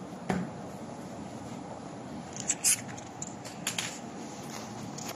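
Cut pieces of honeycomb cardboard handled and set down: a light knock just after the start, then a few crisp scraping snaps in the middle, the loudest about halfway through, over a steady low hum.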